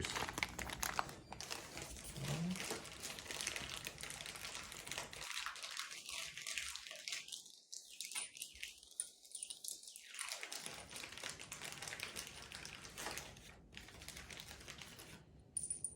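Plastic hardware packet crinkling as it is opened and the screws inside are handled, an irregular run of fine crackles.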